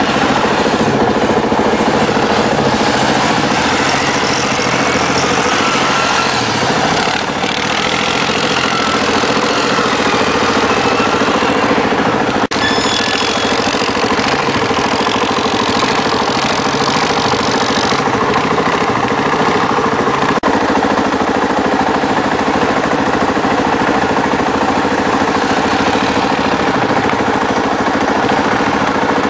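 ATV engines running: a steady engine hum with changing revs as a quad churns through a muddy bog.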